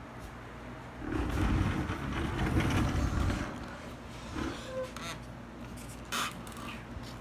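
Handling noise as a camera is passed from one person to another: a low rumbling rustle and bumps from about a second in to halfway through, then a sharp click near the end.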